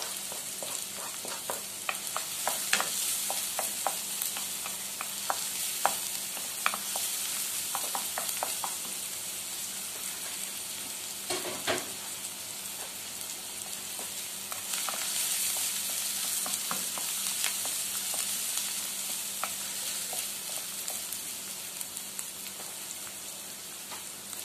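Garlic and onion sizzling in hot oil in a frying pan while being stirred, with sharp clicks of a utensil against the pan now and then, most often in the first several seconds.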